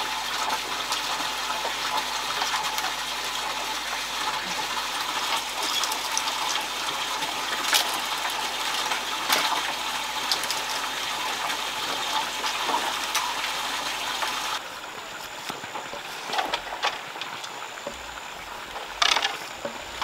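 Steady rushing noise like running water, with scattered clicks and rustles. About fifteen seconds in it drops suddenly to a quieter background with occasional knocks.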